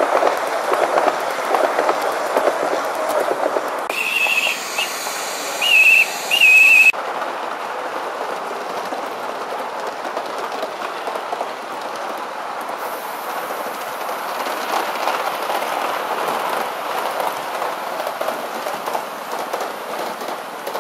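Large-scale model trains running on track, a steady rumble and rattle of wheels on rail. About four seconds in, a model locomotive's high whistle sounds in two short toots and then two longer ones, before the running noise carries on.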